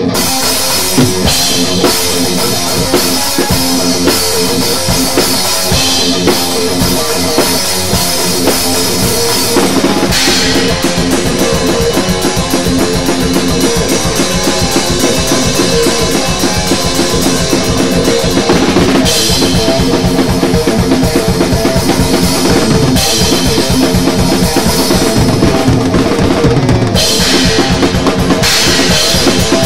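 Thrash metal played on electric guitar and drum kit: guitar riffing over a fast, driving beat of bass drum, snare and cymbals.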